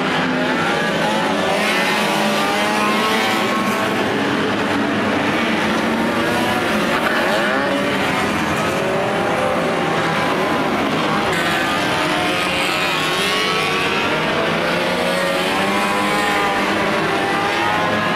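A pack of 1500cc banger racing cars running together on the track, several small engines revving up and down at once over continuous tyre and track noise.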